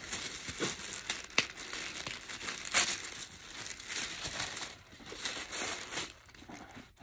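Paper packaging being handled while a parcel is unpacked: irregular crinkling and rustling with sharp crackles, thinning out near the end.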